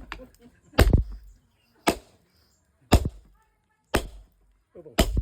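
Five heavy hammer blows, about one a second, on the steel of a car coil spring being uncoiled.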